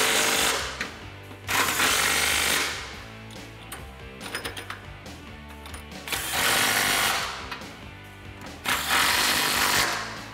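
Cordless impact wrench hammering in four bursts of about a second each, running down the exhaust coupler bolts with a 15 mm socket. Background music plays underneath.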